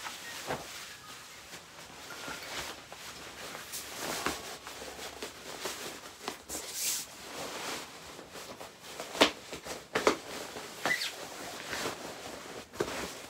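Fabric rustling with scattered knocks and taps as a fitted sheet is pulled and tucked over a cot mattress; the loudest are two sharp knocks about nine and ten seconds in.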